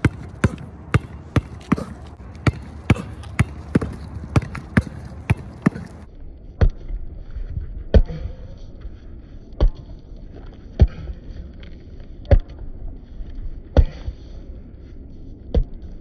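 A Molten basketball dribbled hard on a concrete court. The bounces come quickly, about two a second, for the first six seconds, then slow to about one every second and a half, with pauses where the second ball is rolled and the hands exchange.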